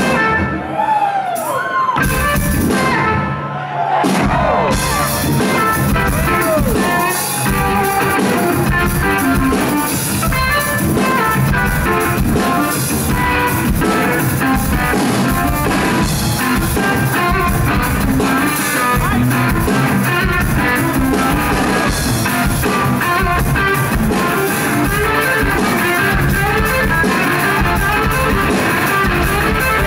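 Live rock band playing loud: an electric guitar plays bending, sliding notes nearly alone for the first few seconds, then the drum kit comes in and guitar and drums play together.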